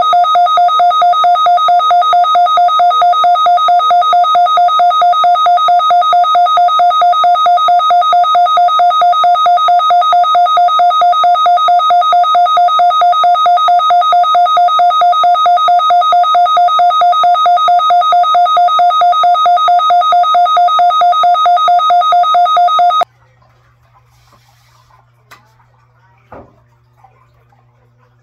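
Midland weather alert radio sounding its alert alarm for the weekly test: a loud, rapidly pulsing two-tone beep. It cuts off suddenly about 23 seconds in, leaving a low hum and a couple of faint knocks.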